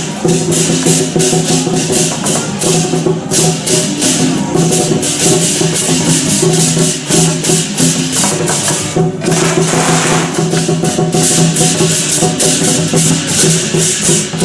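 Lion dance procession percussion: a big barrel drum and clashing hand cymbals played in a fast, continuous beat, over steady held pitched tones from another instrument.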